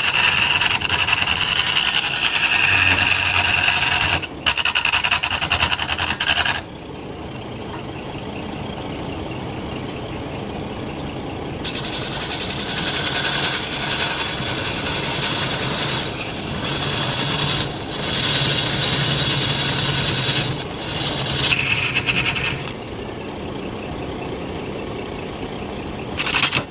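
Long-handled turning tool cutting into a large wooden cylinder spinning on a lathe. It cuts loudly for about the first six seconds, again from about twelve to twenty-two seconds, and briefly near the end. Between cuts the lathe runs on more quietly.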